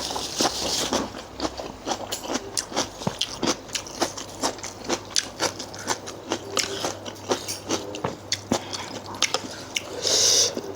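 Close-up chewing and biting of a spicy seafood salad, a quick run of short wet smacks and crunches. A brief, louder rush of noise comes near the end.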